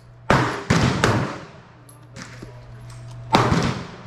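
Pistol shots on a shooting range: three quick shots about 0.4 s apart in the first second, then a single shot about three seconds in, each with a short echoing tail.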